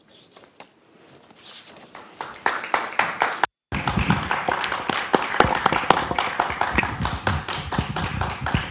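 Audience applause: a few scattered claps swell into steady clapping by about two seconds in, with a brief dropout just after the middle.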